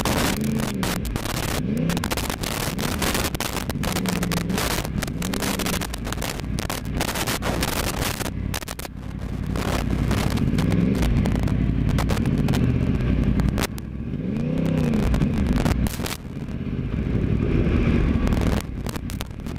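Sport motorcycle engine running at low road speed, its revs rising and falling several times with the throttle. Wind buffets the helmet-mounted microphone, most heavily in the first half.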